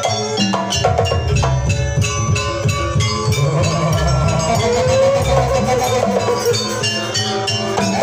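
Live Javanese jaranan ensemble music: drums and struck metal and wooden percussion keep a steady beat, with a wavering melody line above them partway through.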